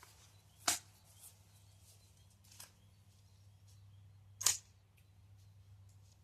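AR-15 pistol firing: two sharp shots about four seconds apart, with a fainter crack between them.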